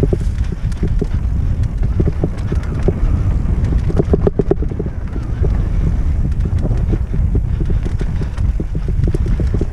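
Wind buffeting the microphone of a camera on a mountain bike riding dirt singletrack, over a constant low rumble of tyres and the bike's rattles over bumps. A quick cluster of rattling clicks comes about four seconds in.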